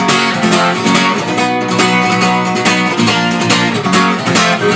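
Acoustic guitar strummed in the 'gallop' pattern, repeated groups of three strokes down, up, down, sounding chords in a steady rhythm.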